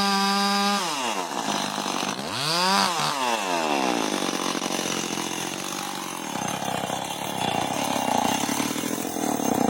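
Chainsaw engine held at high revs, dropping about a second in, revved up and down once more around three seconds, then running lower and rougher.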